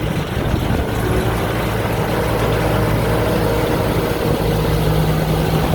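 Combine harvester's Hino J08C six-cylinder diesel engine running steadily under load, with the noise of the harvesting machinery.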